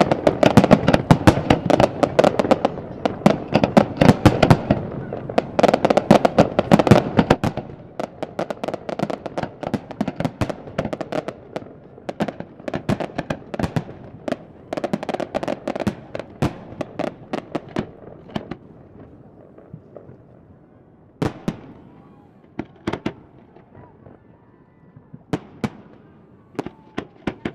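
Fireworks display: dense, rapid bangs and crackling for the first several seconds, thinning out to scattered single bangs a few seconds apart in the second half.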